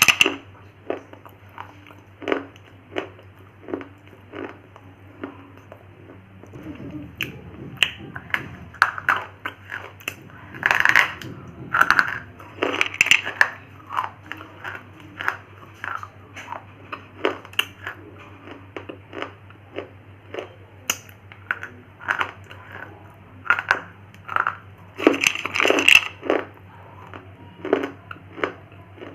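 Close-miked crunching of brittle, chalky mineral snack (baked clay or slate pencil) being bitten and chewed, with sharp cracks one or two a second and denser bursts of crunching now and then, over a faint steady hum.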